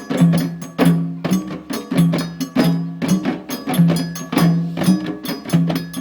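Djembe hand drumming: a steady repeating rhythm of deep, ringing low hits mixed with sharp, bright strikes, several a second.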